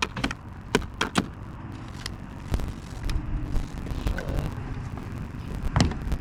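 Sharp plastic clicks and taps as a snap-on mirror cap is pressed onto a pickup's side-mirror housing and its clips catch. There are several clicks in the first second or so and a louder one near the end, over a low rumble.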